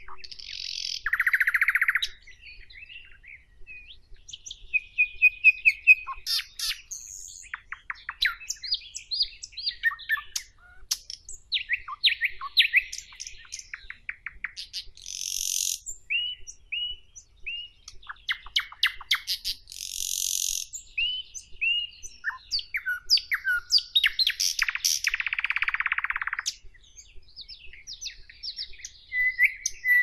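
Nightingale singing: a run of varied phrases of rapid clicking trills, clear whistled notes and harsh buzzing rattles, with short pauses between phrases.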